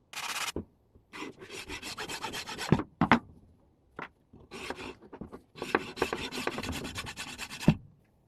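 Hand filing: a file rasping in quick strokes, in several bursts with short pauses between, the longest about two seconds.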